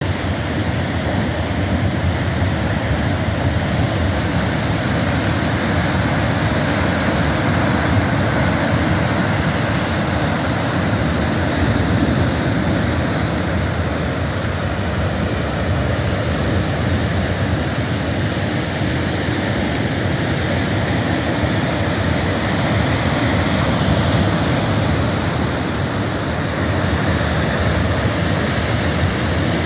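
Heavy ocean surf breaking on rocks and a sandy beach: a continuous rush of crashing waves with a deep low rumble, swelling and easing slightly without any sudden break.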